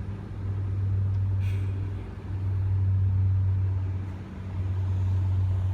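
Heavy truck engine idling: a steady low hum that eases and swells about every two seconds.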